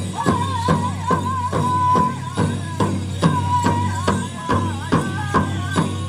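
Powwow music: a drum beaten at a steady, even pulse of about two and a half beats a second, under a high, wavering singing voice.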